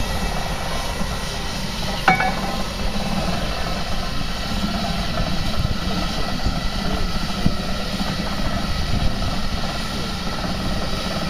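Steady mechanical rumble of a Victorian steam ploughing engine at work, with one brief sharp clank about two seconds in.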